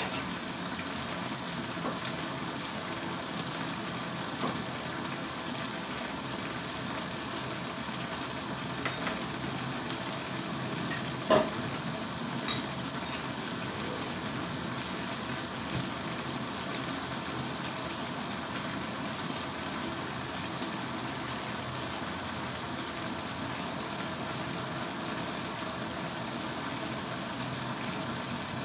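Mixed vegetables and sausage simmering in broth in a frying pan, a steady sizzling hiss as the vegetables cook until tender. A few faint clicks sound over it, the strongest about eleven seconds in.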